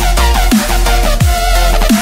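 Electronic music with a deep, steady bass and repeated bass notes that slide down in pitch.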